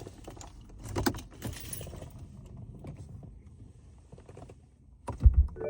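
Car keys jangling and clicking, with a short heavy low thud just past five seconds in.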